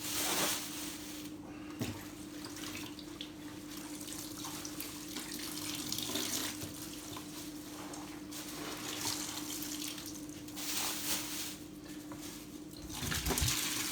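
Water splashing and trickling in surges as wet items are moved about in a flooded storage box, over a steady low hum.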